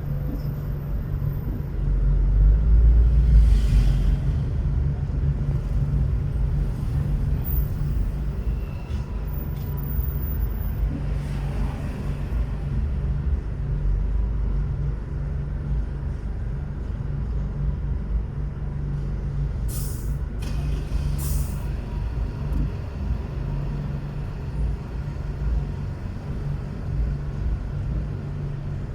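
Car driving through city traffic: a steady low road and engine rumble that swells for a couple of seconds near the start, with two short sharp hisses about twenty seconds in.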